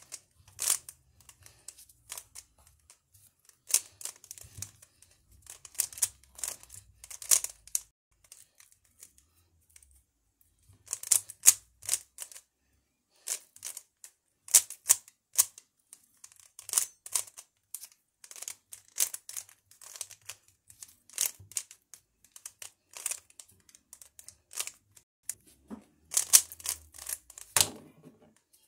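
Plastic 3x3 puzzle cube being turned by hand: the layers click and clack in quick bursts of rapid turns, with short pauses between runs. There is a heavier knock near the end.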